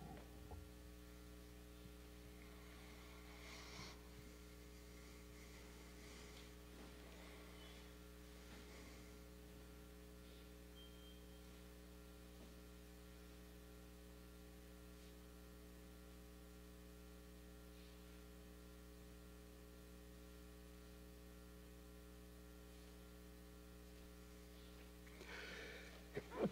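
Near silence: a steady electrical mains hum, with a few faint rustles and a brief stir near the end.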